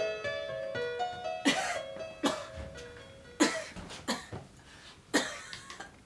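A woman coughing over and over, short harsh coughs about once a second, some in pairs. A keyboard tune plays under the first coughs and fades out about halfway through.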